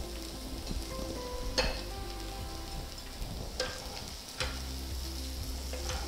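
Potato curry sizzling in a hot non-stick pan while being stirred, with four sharp clinks of the spatula against the pan, the loudest about a second and a half in.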